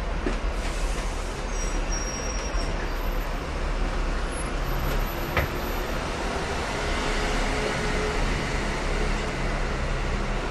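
Steady rumble and running noise heard aboard a Hong Kong double-decker tram, with a single sharp click about five seconds in.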